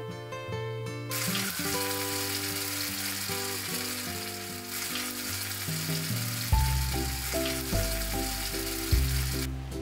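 Rice paper sheets sizzling and crackling in hot oil in a cast-iron pan as they puff up into crisps. The frying starts about a second in and stops shortly before the end, with acoustic guitar music playing underneath.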